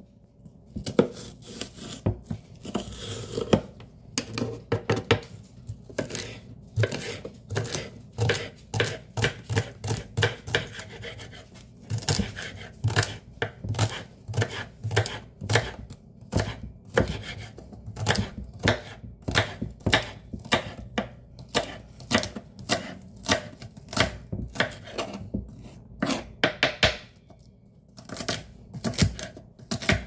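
Kitchen knife dicing celery on a wooden cutting board: a steady run of sharp knocks of the blade through the stalks onto the board, a few a second, with a short pause near the end.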